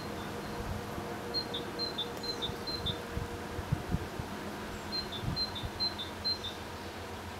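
Freight train hauled by a 2TE116UD diesel locomotive receding into the distance: a steady low rumble and hum, with a few dull thumps near the middle. A small songbird sings a short phrase of alternating high notes twice.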